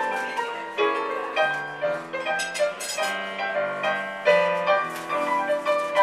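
Piano music played with both hands on a Yamaha digital keyboard: a melody over chords, each struck note ringing and fading.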